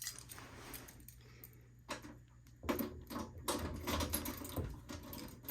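Keys and the metal cabinet of a fire alarm control panel being handled to unlock and open it. A few faint clicks come first, then from about halfway a run of small metallic clicks and rattles.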